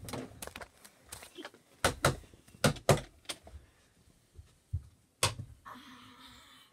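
Mini hockey sticks clacking against each other, the ball and the floor: a string of sharp clacks and knocks, loudest about two and three seconds in, with a short scraping noise near the end.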